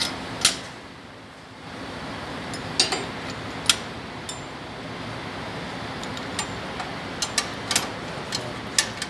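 Irregular sharp metal clinks and ticks of a spanner working on the mounting bolt of a Volvo truck's cab shock absorber, over a steady low hum.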